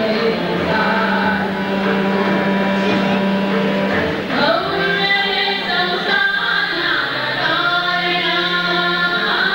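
Two women singing a devotional song together into a microphone, holding long notes as they sing.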